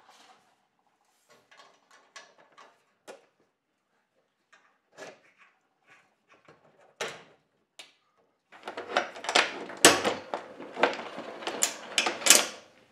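Metal clicks and light clanks of carabiners being clipped onto a trolley bracket in a Unistrut ceiling track. About eight and a half seconds in comes a louder, denser run of metal clanks and scraping as the steel strut rail is lifted against the track.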